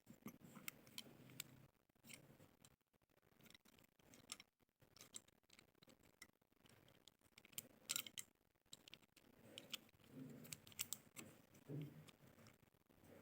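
Faint, irregular crisp crunches and clicks of a white slate pencil being bitten and chewed, with the loudest clusters about eight seconds in and again near eleven seconds.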